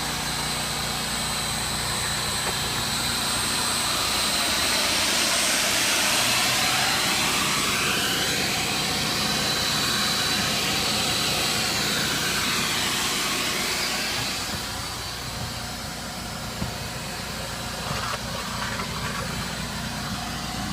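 Steam-cleaning equipment running steadily: a motor hum with a constant high whine, and a spraying hiss that swells a few seconds in and dies away about two-thirds of the way through.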